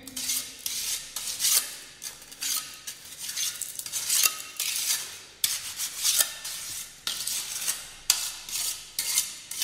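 Steel trowel scraping and smoothing fresh concrete across the top of a cylinder mould, striking off the excess to level it. A run of short scraping strokes, about two a second.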